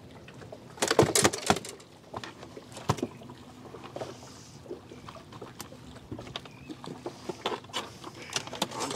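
Handling noise as a small fish is unhooked on a boat's deck: a quick run of sharp knocks about a second in, then scattered light clicks and rustles.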